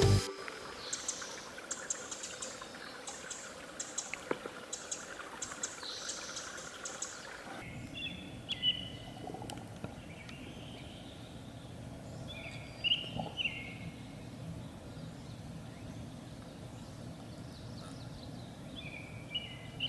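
Small birds singing and calling over a soft background hush: high thin chirps at first, then a different background with short, sharp calls coming in small groups every few seconds.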